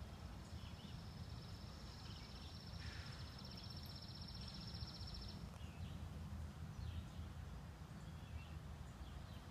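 Faint outdoor ambience: a steady low rumble underneath, a high, fast buzzing trill held at one pitch for about five seconds before it stops, and a few faint chirps.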